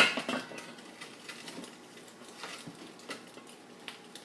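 A metal pan or lid on the stovetop clanks sharply once at the start, with a short ringing and a second smaller knock just after. Scattered light taps and clicks of cookware follow.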